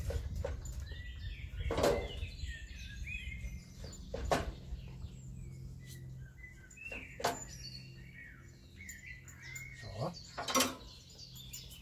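Songbirds chirping and twittering throughout, with a knife knocking on a wooden cutting board about four times, the loudest sounds, as cooked pork roast is cut into small pieces.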